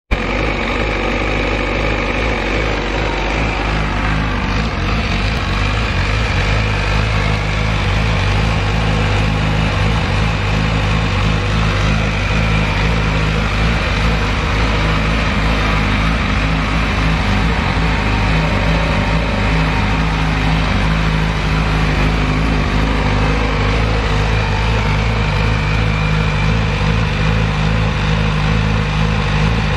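MV Agusta F4 RR 1078's inline four-cylinder engine idling steadily with the bike standing still, with no revving.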